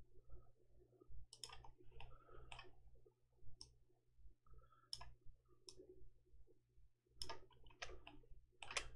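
Scattered clicks of a computer mouse and keyboard keys, irregular and bunched more closely near the end, over a faint steady low hum.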